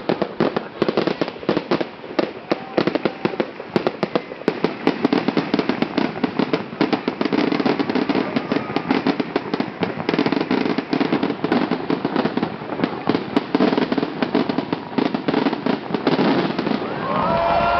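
Fireworks going off in rapid succession: a dense, unbroken stream of sharp bangs and crackles, many each second.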